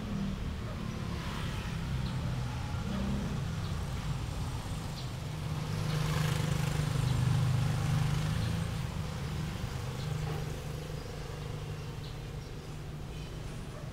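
A motor vehicle's engine running, a low hum that grows louder about six to eight seconds in and then fades away, as of traffic passing on the street.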